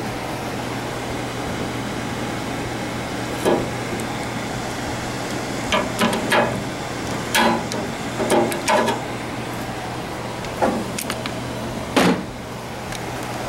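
A hand pop-rivet tool works on a sheet-metal box. It gives a run of sharp clicks and metallic clanks, a few clustered in the middle and single ones near the end, over a steady background hum.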